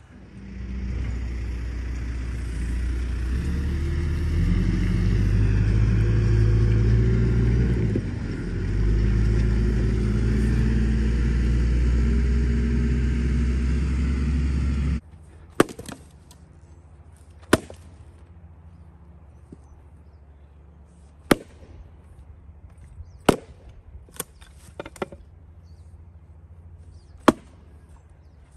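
A loud low rumble, unidentified, that cuts off suddenly about halfway. Then an axe splitting firewood rounds: sharp single strikes about one to four seconds apart, three of them quickly together.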